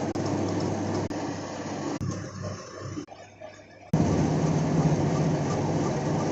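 A workshop machine running steadily with a low hum and a grinding, rushing noise. It drops away for about a second near the middle, then comes back louder.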